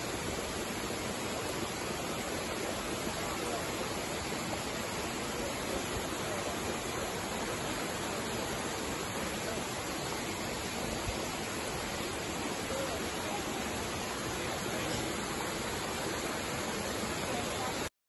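Small waterfall cascading over mossy rocks: a steady rush of falling and splashing water that cuts off suddenly near the end.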